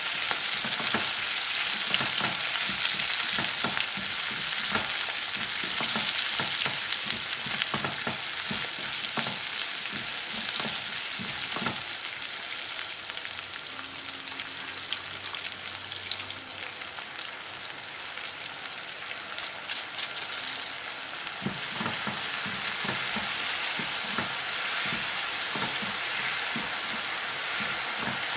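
Filleted chicken pieces sizzling steadily in hot frying oil, with a spatula stirring and turning them in the pan during the first part and again near the end.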